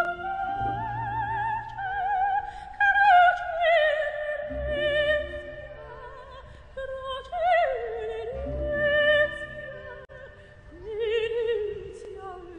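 Opera-style music: a voice sings long held notes with wide vibrato, the melody sinking gradually in pitch, over low sustained accompaniment.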